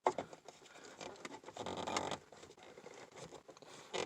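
Faint rustling, scratching and light clicks of an OBD2 scan tool and its cable being handled, with a slightly louder scratchy stretch a little over a second in.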